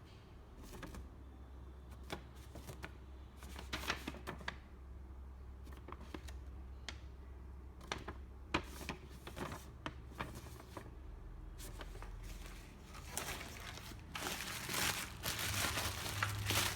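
Handling noise: scattered light clicks and knocks, then denser crinkling and rustling, as of plastic being handled, growing louder over the last few seconds.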